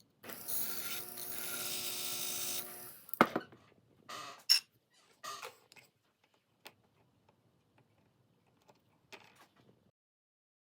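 A small motorised hand tool runs steadily for about two and a half seconds as the brooch pin is taken off the dragonfly piece. Then come two sharp metallic clicks, a couple of short scrapes and a few light taps of metal tools.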